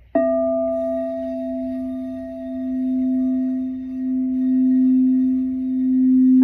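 Singing bowl struck once and left ringing, a low tone with fainter higher overtones whose loudness slowly swells and ebbs in a wavering pulse. Right at the end a second, slightly higher bowl is struck.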